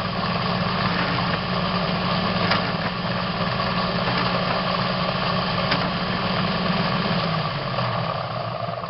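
CNC machine running steadily while cutting an M20 thread in a steel tube: a constant low motor hum under a dense cutting noise, with a few sharp ticks.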